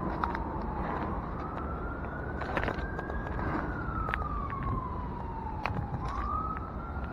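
Emergency vehicle siren in a slow wail: it rises over about three seconds, falls over the next three, and starts to rise again near the end. It sounds over a steady rumble of traffic.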